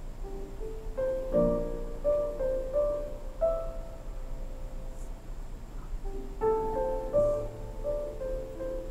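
Piano playing a slow melody note by note, with a break of about two seconds midway.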